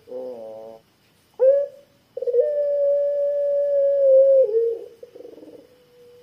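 A ringneck dove of the Indonesian puter pelung strain cooing. A short buzzy rolling note comes first, then a brief rising note, then one long, deep, steady coo held for about two seconds. The coo ends in a falling warble and trails off faintly.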